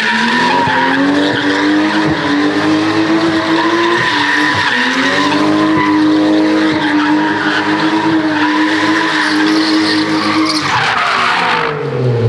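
Drift car engine held at high revs, its pitch rising and dipping with the throttle, over the screech of tires skidding sideways. Near the end the engine note falls away as the car comes off the throttle.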